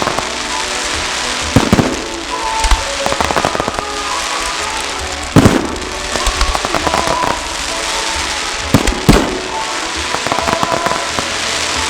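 Fireworks display: aerial shells bursting with loud bangs, about one and a half seconds in, at about five and a half seconds and twice close together near nine seconds, amid continuous crackling from the effects.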